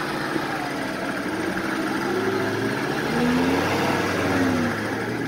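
Off-road prototype's engine running under load while stuck in a water-filled mud trench. It revs up and back down twice in the second half, the second time loudest.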